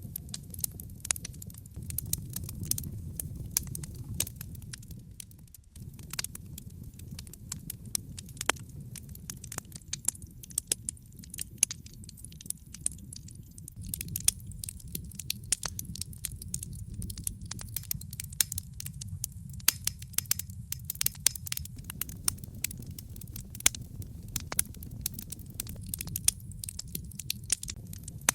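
Wood logs burning in a fireplace: dense, irregular crackling and sharp pops over a steady low rumble of the flames, with a brief lull a little under six seconds in.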